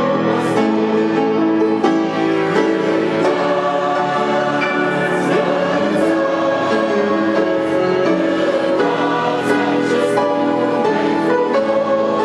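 A congregation singing a hymn together in Romanian, many voices in unison, with grand piano accompaniment.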